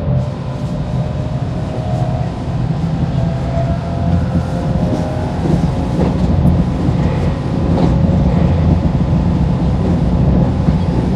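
Electric commuter train running, heard from inside the front of the train: a steady low rumble of wheels on track, a thin motor whine that rises slowly in pitch, and a few scattered clicks.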